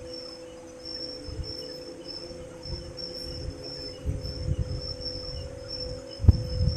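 Insects chirping in a quick, pulsing high trill over a steady low hum, with low thumps and rumbles that grow stronger in the second half, the loudest about six seconds in.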